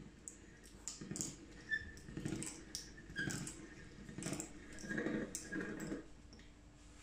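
Hand-cranked pasta machine turning, its cutter rollers slicing a sheet of ramen dough into noodles: a rattle of clicks and low rumbles with each turn, roughly once a second.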